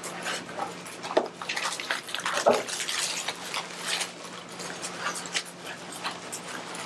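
Papers being rustled and handled at a table, with scattered crinkles and a few soft knocks, over a faint steady hum.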